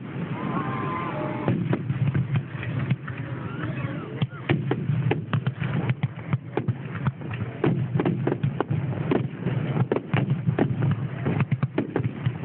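Aerial fireworks display: shells bursting one after another in an irregular string of bangs and crackles, growing denser and faster about four seconds in.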